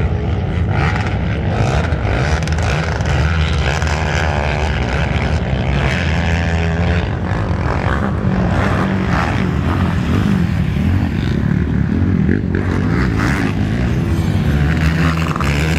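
Racing quad ATV engines buzzing as several quads lap a dirt motocross track, the pitch rising and falling as riders throttle up and back off.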